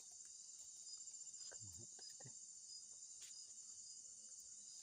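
Faint insects trilling, cricket-like: a steady high trill with a slower, regular chirp repeating about every two-thirds of a second.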